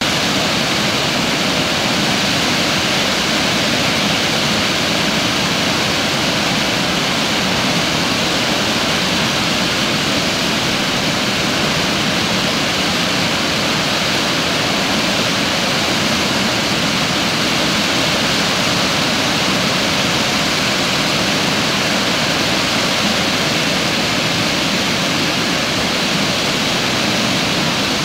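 Water pouring over a concrete dam spillway and churning into the river below: a loud, steady rush of falling water.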